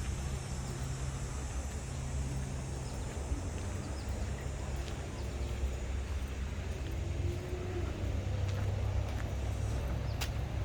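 Outdoor ambience dominated by a steady low rumble of distant road traffic, with a faint steady high hiss and a few light ticks.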